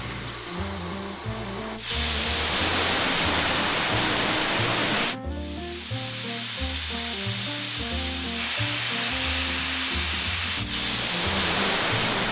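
A cleaning spray jet hisses against an air conditioner's heat exchanger, washing off grime, over background music. The hiss comes on loud about two seconds in, drops to a softer hiss after about five seconds, and turns loud again near the end.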